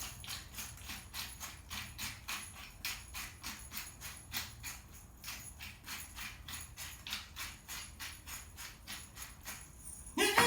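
Pepper being put onto salmon fillets from a pepper dispenser, in quick, even rattling strokes of about four a second that stop just before the end.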